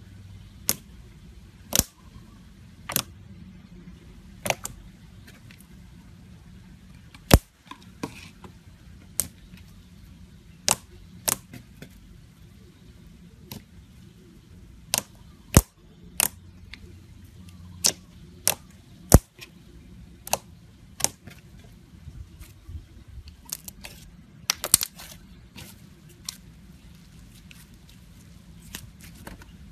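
Glossy slime being pressed, squeezed and stretched by hand, giving off sharp clicks and pops from trapped air at irregular intervals, with a quick cluster of pops near the end.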